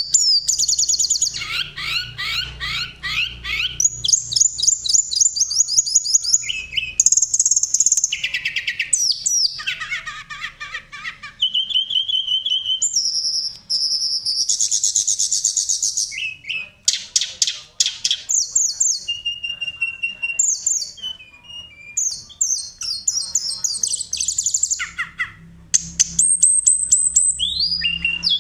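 Tledekan gunung (a blue flycatcher) singing a long, varied song of the kind played to train caged songbirds: fast high trills and chattering runs alternating with short clear whistles, with brief pauses between phrases.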